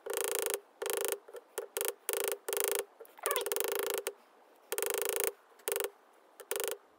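Small hammer striking a freshly annealed sterling silver rod on an unhardened 4140 steel block, drawing the silver out cold. About a dozen uneven blows, roughly two a second, each ringing with a clear metallic tone; some are clipped short and a few ring on for about half a second.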